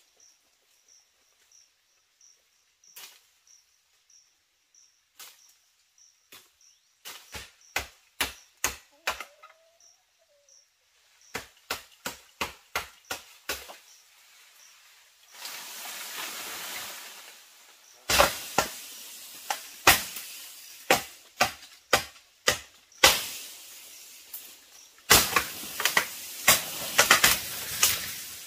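Runs of sharp knocks, about three a second, coming in several bursts that grow louder and closer together toward the end, with rustling between them. A faint insect chirps over and over early on.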